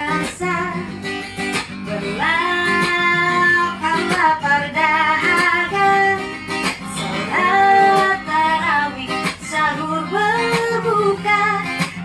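A woman singing with long held notes over a strummed acoustic guitar.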